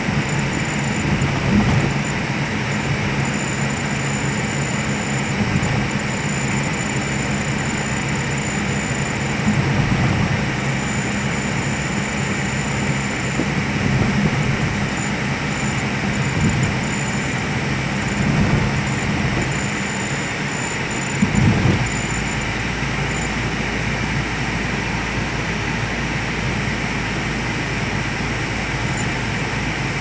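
Steady engine and tyre noise heard from inside a car's cabin while it drives along a highway, with a brief thump about two-thirds of the way through.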